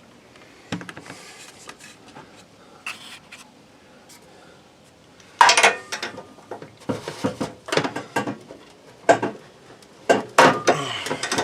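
Metal tools clinking and scraping as a crow's-foot wrench is worked on the gas-line fitting of an RV furnace. A few separate clicks early, then a busy run of sharp metallic clicks and rattles from about halfway through.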